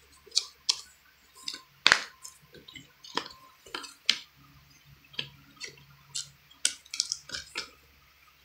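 Plastic Blu-ray cases and a cardboard slipcover being handled: irregular clicks, taps and light rustling, with sharper clicks about two and four seconds in.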